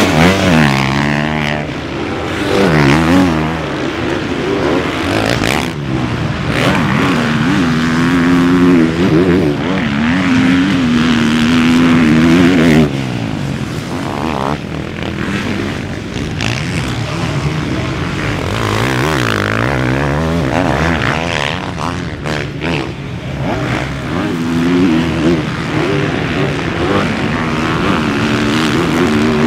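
Motocross bike engines revving hard and dropping back as riders accelerate, shift and brake through the corners, so the pitch climbs and falls again and again. More than one bike is running at once.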